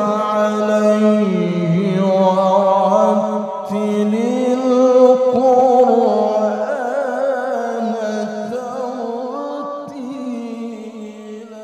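A male Quran reciter's voice through a microphone, drawing out one long melismatic note in melodic mujawwad tilawah with an ornamented, wavering pitch, slowly fading near the end.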